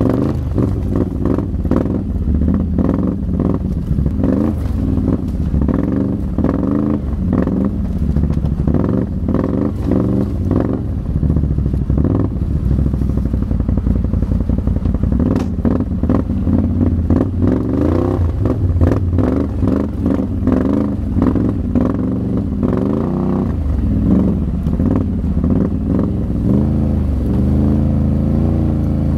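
Can-Am XMR ATV engine running at low speed, its revs rising and falling again and again as the quad crawls over rocks and through brush. Branches and brush scrape and clatter against the machine, with many short sharp clicks.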